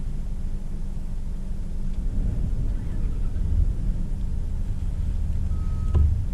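Low, steady rumble of storm wind and heavy surf. Near the end come a short beep and a knock.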